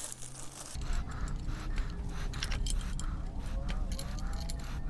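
Light metallic clicks and clinks of bolts being handled and started into the base collar of a benchtop drill press to hold the column tube, over a low steady rumble that sets in about a second in.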